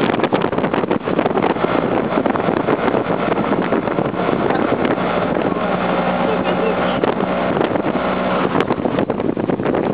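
Auto-rickshaw engine running at speed, heard from on board, with a busy rattle and wind rushing past.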